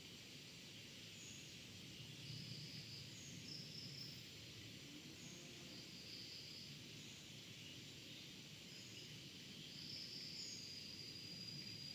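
Faint tropical countryside ambience: insects calling in short high bursts every second or two, with a few brief higher chirps, over a low distant rumble. Near the end one insect begins a steady, continuous high trill.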